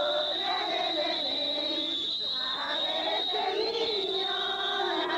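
A group of people singing together, several voices overlapping with some notes held, over a steady high-pitched whine.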